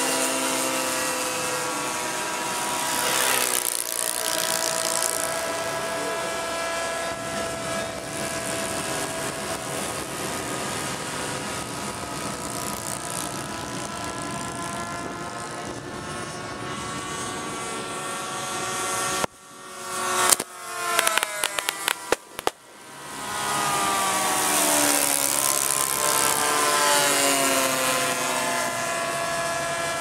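Engines of several radio-controlled scale warplane models droning as they fly past, their pitch falling as each one goes by, most plainly near the start and again in the last few seconds. About two-thirds of the way through, the sound breaks off in a string of short gaps and clicks.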